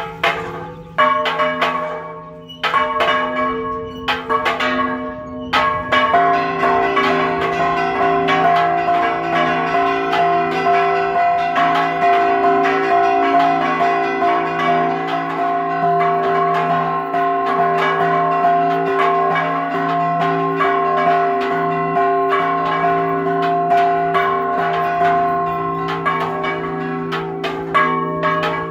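Large bronze church bells rung by hand in the bell tower. A few slow single strokes come first. About six seconds in, all the bells break into a fast, continuous peal (the repique), which thins back to separate strokes near the end. This is the ringing that calls the town to mass.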